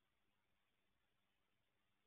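Near silence: only a faint steady hiss with a little low hum.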